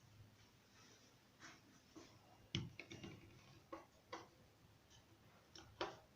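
Faint, irregularly spaced clicks and taps, a dozen or so, with the sharpest knock about two and a half seconds in and another near the end.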